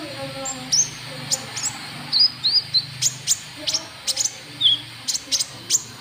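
Konin trotol bird call used as a lure for rival birds: sharp, very short high chirps and brief upslurred and downslurred notes, given in a quick, irregular series.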